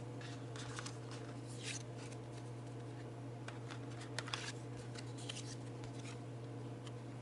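Soft rustles and light clicks of cards being handled and shuffled, scattered through the pause, over a steady low electrical hum.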